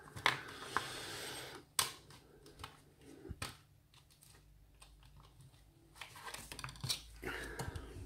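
Handling noise from swapping lock picks: a rustle from the pick case in the first second and a half, then scattered sharp clicks and taps of metal picks against each other and the padlock.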